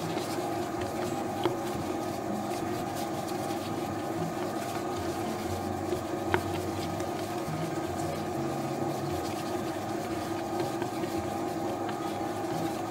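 Commercial dough mixer running steadily, its motor humming as it kneads a wet bread dough in the steel bowl until it develops its gluten. Two faint ticks, about a second and a half in and again about six seconds in.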